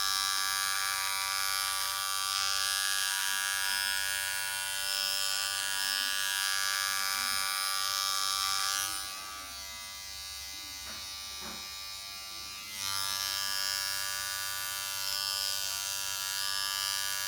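Electric hair clippers buzzing steadily while trimming a hairline, the hum dropping quieter for about four seconds midway before returning to full level.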